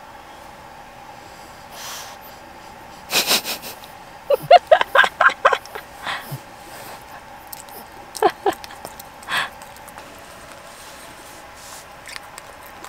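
Small dog snorting about three seconds in, then a quick run of short, high whiny squeaks, a couple more squeaks near eight seconds and a last snort just after nine seconds.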